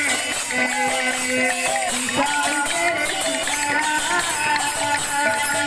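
Live Sambalpuri kirtan music: a woman's voice singing into a microphone over a barrel drum and a fast, even metallic jingle of hand percussion.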